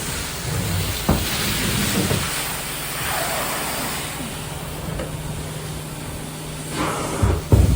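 Truck-mounted carpet cleaning machine extracting through the wand at full power: a steady rushing suction hiss over a low hum, with a few knocks, the loudest near the end.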